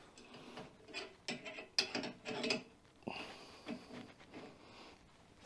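Faint, irregular metallic clicks and clinks as steel hand tools and wheel-bearing press parts are handled and fitted on a hub clamped in a vise.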